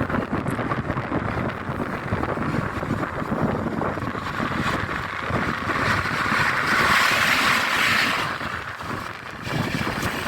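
A train running past, a steady rumble and hiss of wheels and air with wind on the microphone, rising to a louder hiss about six seconds in and easing off near the end.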